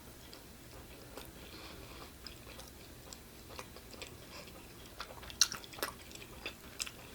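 A person chewing pizza close to the microphone: faint wet mouth clicks and smacks, with a sharper click about five and a half seconds in.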